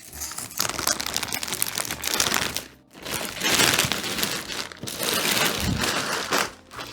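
Plastic wrapping crinkling and rustling as it is handled, in two stretches with a short pause about three seconds in.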